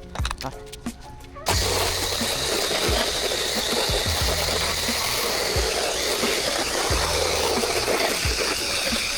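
A pressure washer wand cuts in about a second and a half in and sprays steadily, a loud even hiss, as soap is shot onto house siding through a shooter tip. Background music with a steady beat plays throughout.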